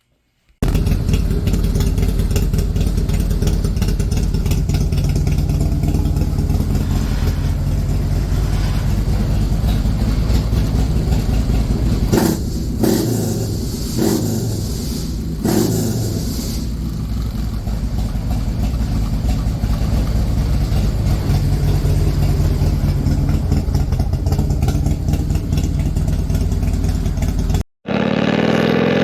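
Harley-Davidson V-twin with aftermarket cams and a D&D Boarzilla 2-into-1 exhaust, running steadily, then revved in about four quick throttle blips near the middle. Near the end the sound cuts abruptly to another stretch of engine running.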